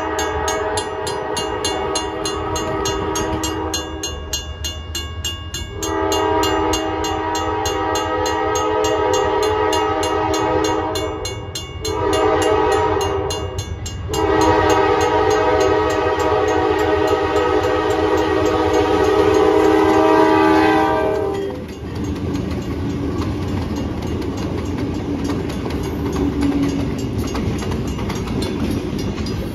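Diesel freight locomotive's air horn sounding the grade-crossing signal as the train approaches: two long blasts, a short one and a final long one. After the last blast the locomotives' diesel engines and the wheels on the rails run past steadily.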